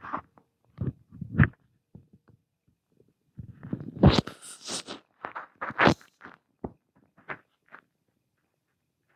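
Human stomach gurgling and rumbling in irregular short bursts, with a louder cluster of gurgles in the middle that dies away near the end.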